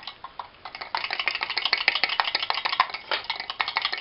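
Whisk beating egg yolks and melted butter into hollandaise in a ceramic bowl: a fast, steady run of clicks and scrapes against the bowl. It is fainter for about the first second, then brisk.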